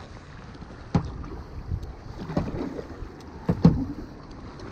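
Kayak paddle blades striking and splashing through river water in quick strokes, with a sharp splash about every second or so.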